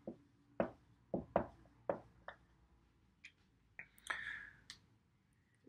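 Dry-erase marker writing a number on a whiteboard: a quick run of short taps and strokes over the first two and a half seconds, then a few more strokes, one longer and scratchier, about four seconds in.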